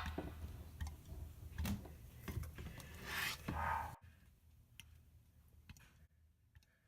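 Scattered clicks and short rustling handling noises of small objects, busiest in the first four seconds, then a few faint isolated clicks.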